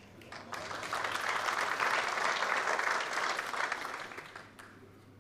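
Snooker audience applauding a potted black. The clapping swells about half a second in and dies away after about four seconds.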